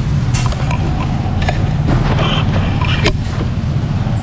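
A steady low engine hum in the background, with several sharp clicks and knocks of something being handled.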